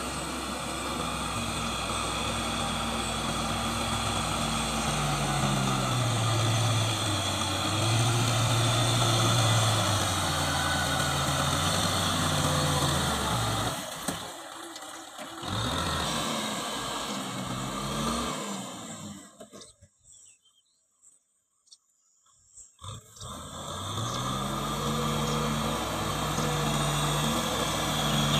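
Kubota M6040SU tractor's diesel engine running while plowing, its note dipping and rising as the revs change. The sound drops out briefly once, then falls almost to silence for about three seconds before the engine comes back.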